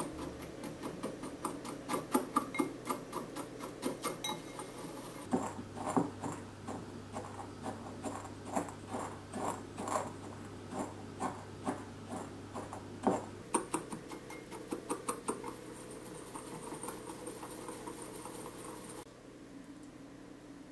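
Wire whisk ticking rapidly against a glass bowl as a dry spice rub of salt and sugar is mixed. From about five seconds in, a wooden pestle knocks and grinds the rub in the glass bowl at about two knocks a second, with lighter clicking after that until it quietens near the end.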